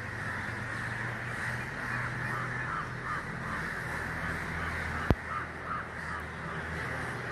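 A large flock of crows cawing overhead, many calls overlapping into a continuous chorus, with a single sharp click about five seconds in.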